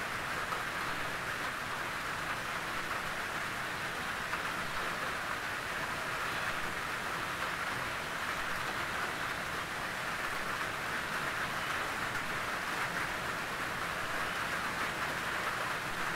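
Steady rain falling on a tin roof, an even hiss of many small drop impacts on the metal.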